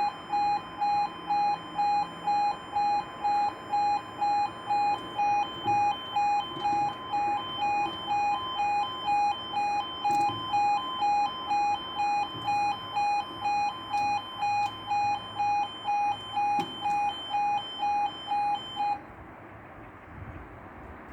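Level crossing warning alarm sounding its two-tone yodel, alternating between two pitches about twice a second, warning that a train is approaching. It cuts off suddenly about 19 seconds in, leaving a faint background hum.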